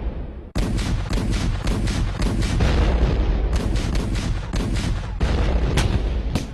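Battle sounds: a rapid run of gunshots over a heavy low rumble of explosions, cutting out briefly about half a second in and then resuming.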